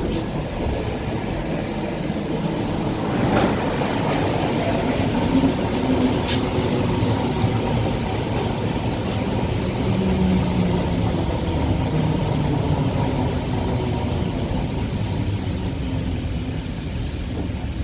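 Steady running rumble inside the carriage of an ET2M electric multiple-unit train moving at low speed along a station platform, with a faint motor hum and a few light clicks.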